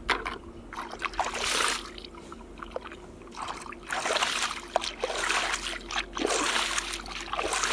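Water splashing and trickling in three separate spells as toy vehicles are washed.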